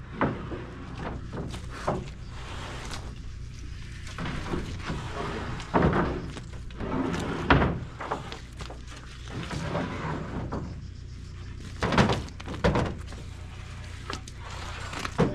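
Oak picket boards knocking and thudding as they are handled and stacked into a truck: a string of separate wooden knocks, the loudest about six, seven and a half, and twelve seconds in.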